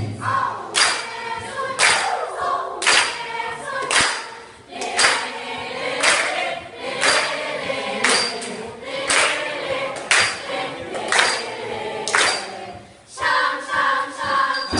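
Group of school singers singing in harmony, with a sharp percussive beat about once a second that stops a little before the end.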